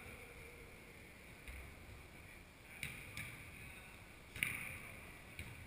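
Football kicked on artificial turf in a large indoor sports hall: a few sharp thuds, the loudest about four and a half seconds in, echoing slightly over a steady hiss from the hall.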